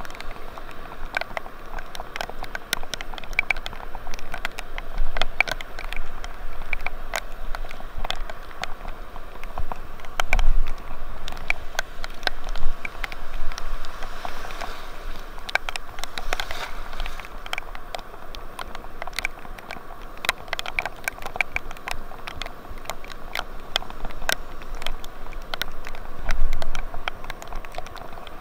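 Rain pattering, with many irregular sharp ticks of drops hitting a nearby surface over a steady hiss, and a few dull low thumps.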